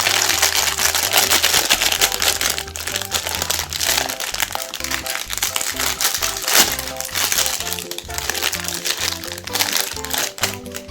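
Crackling and crunching of chocolate-coated ice cream bars being crushed through a meat grinder, a dense continuous crackle that starts suddenly and stops near the end, over background music.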